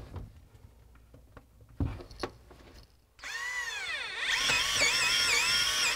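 Cordless drill with a long bit drilling a pilot hole down through the floor. A few light knocks come first, then about three seconds in the motor whine starts and rises and falls in pitch as the bit bites.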